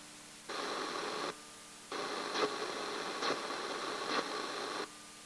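Radio static hissing in two stretches, a short one and then a longer one, each switching on and off abruptly, over a quieter background with a few faint steady tones.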